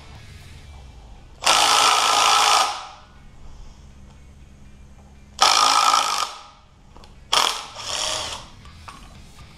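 Cordless impact driver hammering bolts loose from an engine block in three short bursts, each about a second long, the last one coming soon after the second.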